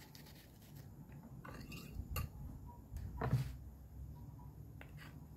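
Soft knocks and scrapes of kitchen handling: a knife cutting a red onion over a stone molcajete, and a wooden spoon stirring the chopped onion into the salsa against the stone. Two clearer clicks come about two and three seconds in.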